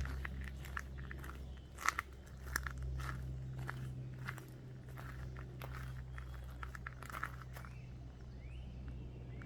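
Footsteps crunching on a gravel bush track, irregular steps over a steady low hum.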